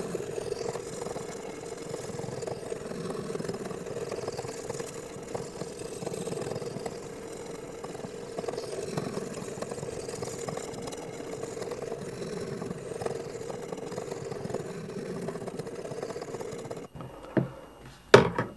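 Abrasive sharpening stone on a guided sharpening system's arm stroked back and forth along a CPR-steel knife blade, a steady grinding rasp while the convex edge bevel is being reprofiled. It stops a second or so before the end, followed by a few sharp knocks.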